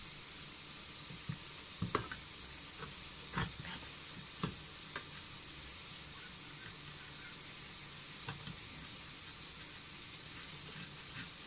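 Crab sticks being grated on a metal box grater: a few light knocks and scrapes of the grater over a steady, faint sizzling hiss.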